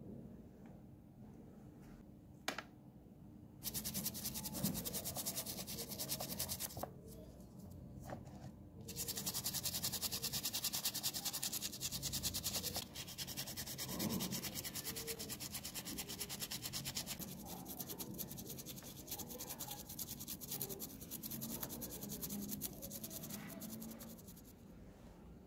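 A toothbrush scrubbing small rubber clock parts in soapy water, quick back-and-forth brushing strokes in several stretches with short pauses, starting a few seconds in.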